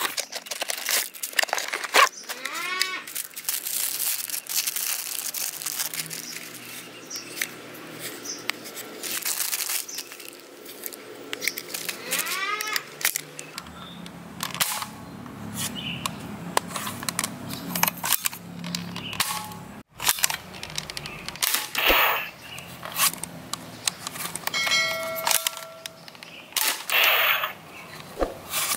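Unboxing handling noise: a cardboard box and plastic packaging rustling and crinkling as they are opened. Scattered sharp clicks and knocks come from a plastic foam-dart blaster being handled and loaded.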